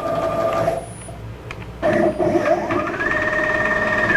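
Stepper motors of a DIY CNC router driving the gantry in a jog move: a steady whine that stops under a second in, then, about two seconds in, a second move whose whine climbs in pitch, holds high, and starts to fall near the end as the axis slows.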